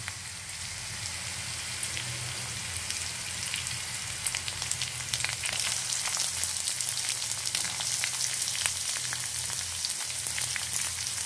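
Crushed garlic sizzling and crackling in hot oil in a kadai (Indian wok). About halfway through, chopped onion goes into the pan and the crackling gets busier and a little louder.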